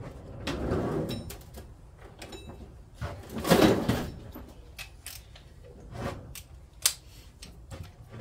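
Metal hand tools being rummaged and handled: a brief clatter early on, a louder scraping clatter of about a second about three and a half seconds in, then scattered knocks and clicks.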